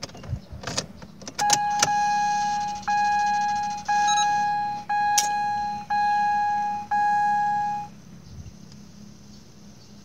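A few clicks, then a car's electronic warning chime sounding six times, each tone about a second long and fading, with short gaps between.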